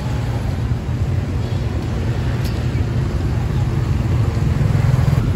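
Steady low rumble of street traffic and outdoor market noise, with faint voices.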